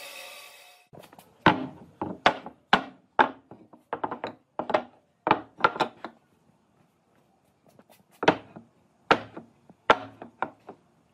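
Thick round wooden tree-trunk slices being set down one after another on a wooden tabletop: a quick string of sharp wooden knocks, a pause of about two seconds, then several more. In the first second the band saw's motor sound fades out.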